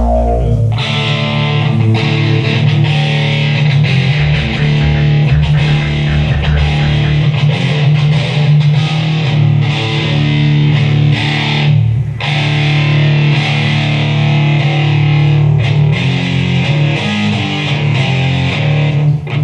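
A rock band playing live, with distorted electric guitar out front over bass and drums, as a sound check.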